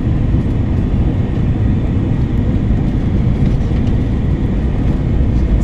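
Steady low rumble of an Airbus A321-200 heard inside the passenger cabin: engine and airflow noise.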